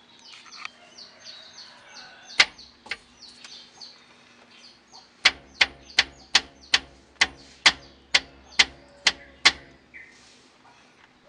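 A car's rear stabilizer bar shaken by hand, knocking sharply in its mounting: two single knocks, then a steady run of about eleven knocks, roughly two and a half a second. The knocking is the sign of a stabilizer gone loose from age and wear, one cause of the rattling from the rear of the car. Birds chirp faintly underneath.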